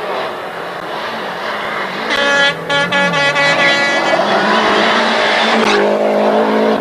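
Rally car engine at full throttle as the car climbs a gravel stage and passes close by. Its note builds up, breaks briefly twice about two and a half seconds in, then runs on at a lower, steadier pitch near the end.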